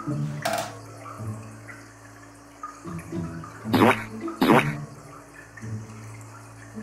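Wet squelching as the guts and gas bladder of a giant isopod are pulled out by hand, with two sharp loud squelches close together about four seconds in, over soft background music.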